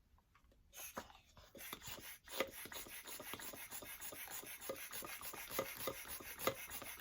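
Hand balloon pump being worked to inflate a long modelling balloon: a faint, fast, even rasping rhythm of air being pushed through the nozzle. It starts about a second and a half in, after a moment of near silence.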